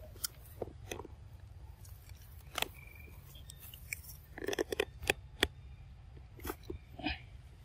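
Macaques eating small nuts: irregular sharp crunches and clicks of chewing and cracking, thickest a little past the middle.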